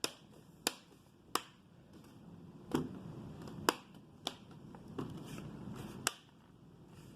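Plastic screen-bezel clips of an HP Stream 14 laptop snapping into place one by one as the bezel is pinched onto the lid: about seven sharp clicks at uneven intervals, with soft rubbing of fingers on plastic between them.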